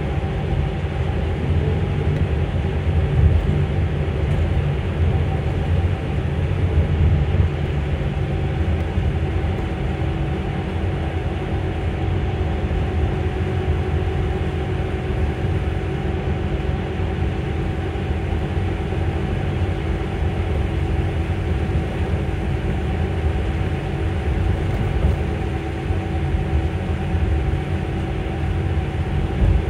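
Electric bus in motion, heard from inside the passenger cabin: a steady motor whine over low road and tyre rumble, its pitch holding level at a steady cruising speed.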